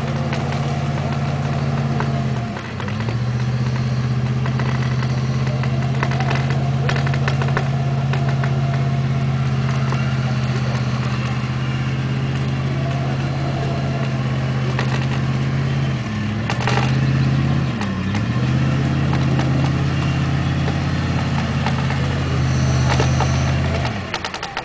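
Vehicle winch pulling a Jeep Grand Cherokee through deep mud, its motor running with a steady drone. The pitch sags and recovers under load about two and a half seconds in and twice more a little past the middle, and the drone stops just before the end.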